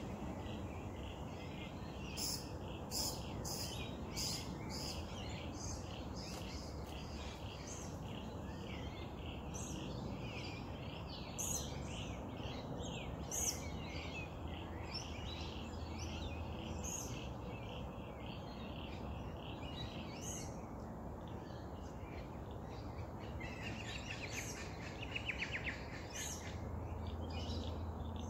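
Many birds chirping and calling over a steady low background rumble, with sharp high chirps scattered throughout and a rapid pulsed trill near the end.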